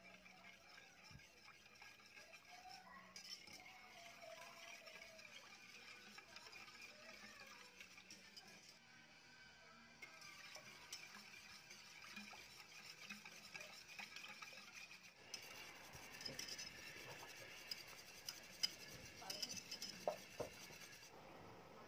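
Wire whisk stirring teriyaki sauce in a pot: faint swishing, with light clinks of the wires against the pot that grow more frequent in the last third.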